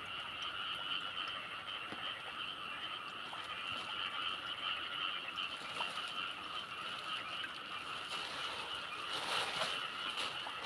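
A steady chorus of calling animals, a continuous high-pitched trilling drone with faint scattered ticks, and a few louder rustles near the end.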